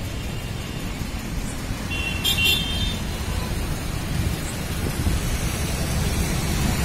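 Road traffic running steadily, a low rumble of car engines and tyres, with a brief high vehicle horn toot about two and a half seconds in.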